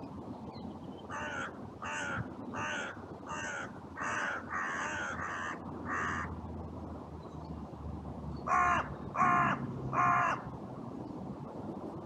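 Carrion crow cawing: a steady run of about eight caws at well under one a second, then after a short pause three louder caws.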